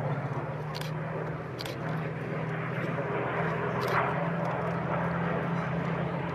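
Four Spitfires flying over in formation, their piston V12 engines a steady propeller drone.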